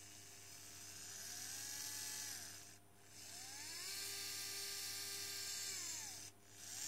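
ES120 motion-controlled electric screwdriver's small motor spinning freely in the hand: a whine that rises as it spins up, holds steady and winds down, twice, the first run about two seconds and the second about three. A third run starts just at the end.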